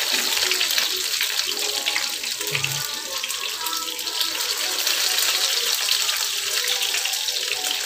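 Tortang dilis (anchovy fritters bound with egg and flour) sizzling in hot oil in a frying pan, a steady hiss full of small crackles and pops.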